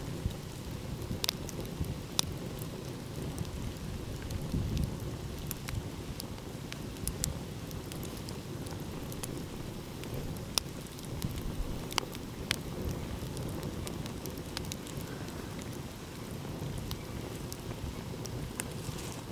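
Wood fire crackling, with sharp pops at irregular intervals, over a steady low rush of ocean surf.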